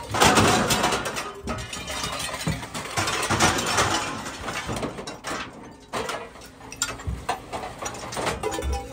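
Copex scrap shear's charging box closing on a load of scrap metal extrusions, with irregular clanks and crunches as the metal is crushed, over a steady machine hum.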